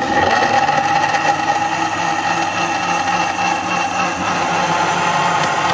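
Countertop electric blender motor starting suddenly and running at a steady speed, whirring as it blends melon chunks with milk into a smooth shake.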